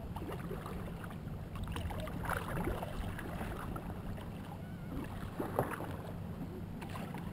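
Strokes of a carved wooden kayak paddle splashing and dripping in the lake, in two clusters about two and five seconds in. Under them runs a steady low rumble of water and wind against the hull.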